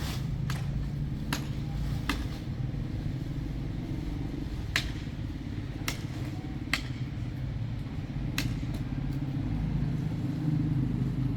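Large engine running steadily with a constant low hum, with sharp clicks or knocks at irregular intervals, about one every second or two.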